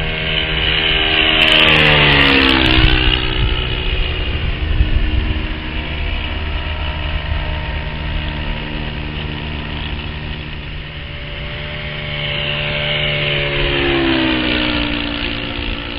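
Radio-controlled P-47 Thunderbolt model's OS FS-120 four-stroke glow engine, turning a four-blade propeller, running steadily as the plane flies past twice. Each pass grows louder and then drops in pitch as it goes by, once about two seconds in and again near the end.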